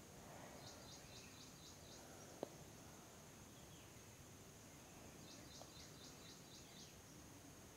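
Near silence with faint background chirping: two short runs of quick high chirps, about five in each run, one near the start and one after about five seconds, and a single faint click a little after two seconds.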